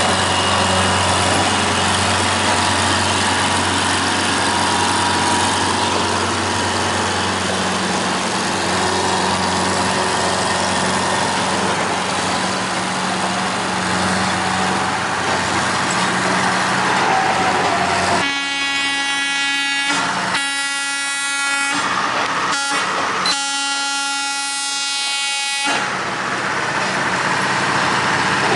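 Engines of railroad maintenance-of-way machines running steadily as they move along the track. About 18 s in, a horn sounds four blasts, long, long, short, long: the grade-crossing warning signal.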